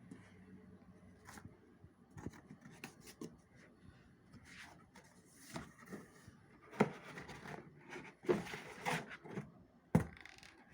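Packaging being handled while a food steamer is unboxed: irregular rustling, scraping and taps, with a few sharper knocks toward the end.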